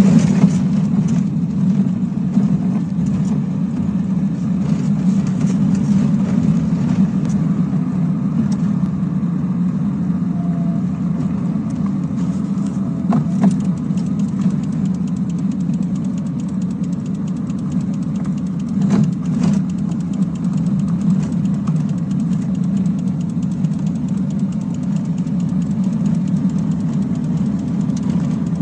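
A car driving along, its engine and road noise heard from inside the cabin as a steady low hum, with two brief sharp knocks around the middle.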